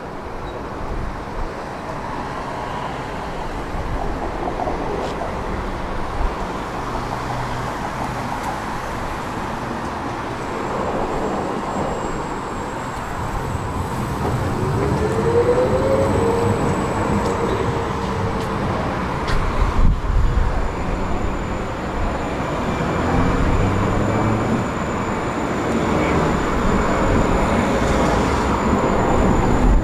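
Tram running on its rails, a continuous rumble with a low motor hum; about halfway through, a short whine rises in pitch, and the sound grows louder over the second half.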